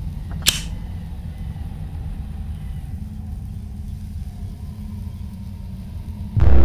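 Low rumbling drone with a single sharp metallic clack about half a second in, the lid of a flip-top lighter snapping shut. Near the end a loud, sudden horror-music hit comes in with a low held tone.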